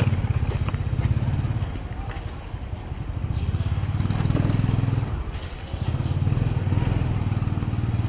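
A small engine, like a motorbike's, running, its sound swelling and fading: loud at first, quieter a couple of seconds in, then loud again.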